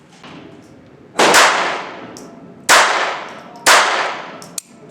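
Three shots from a Jennings J-22 .22 LR semi-automatic pistol, about a second and a half then a second apart, each ringing out briefly; the pistol is firing and cycling normally. A small click follows near the end.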